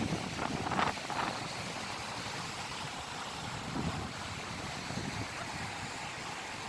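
Ocean surf washing on the shore, with wind rumbling on the microphone.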